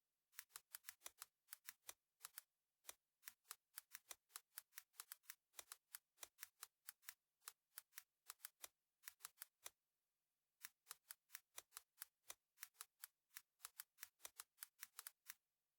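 Faint computer-keyboard typing: quick, irregular runs of sharp key clicks with short pauses between runs.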